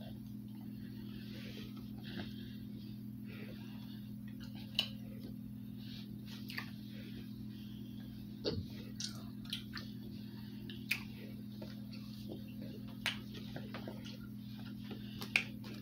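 Faint chewing and mouth sounds, with scattered small clicks, from people eating a soft chewy fruit candy, over a steady low hum.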